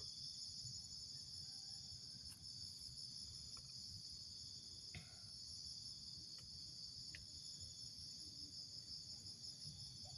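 Steady high-pitched trilling of insects, with a few faint clicks.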